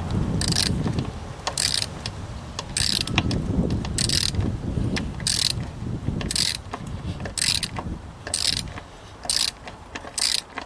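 Ratchet spanner turning a 13 mm nut or bolt, the pawl clicking in a short burst on each return stroke, about once a second, with knocks of metal being handled.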